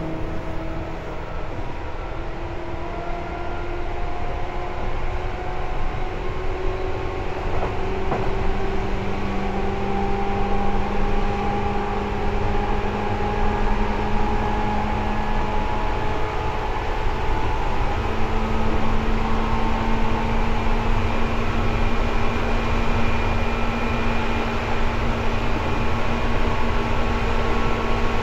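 Seibu 2000 series electric train running, heard from inside the car: a loud traction-motor whine of several tones rising slowly in pitch as the train gathers speed, over a steady rumble of wheels on rail.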